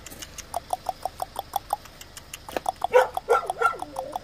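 Chained village dog vocalising: a fast run of short, high-pitched cries at about six a second, then a few louder, longer cries that bend in pitch about three seconds in.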